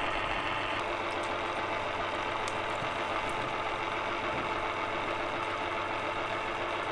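Small electric chocolate fountain's motor running, a steady unbroken whirr as it drives the chocolate up the tower.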